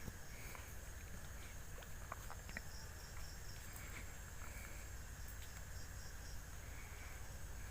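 Quiet background ambience: a faint steady high-pitched whine, soft intermittent chirps and a few small clicks about two seconds in.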